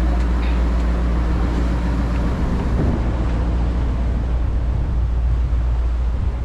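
Engine of a wooden outrigger fishing boat under way, running at a steady low drone, with water rushing past the hull.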